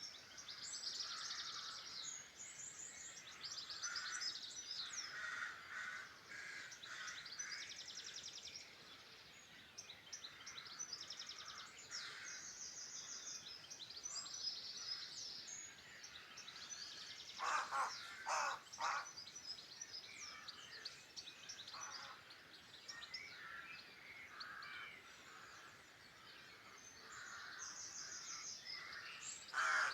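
A chorus of small songbirds singing continuously: rapid high trills and chirps overlapping one another. About two-thirds of the way through, three loud, harsh calls come in quick succession.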